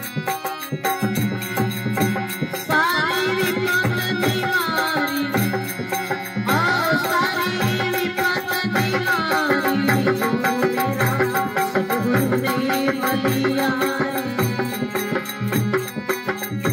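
A devotional bhajan performance. A man sings long, sliding vocal phrases over a harmonium, with hand-drum percussion keeping a steady beat.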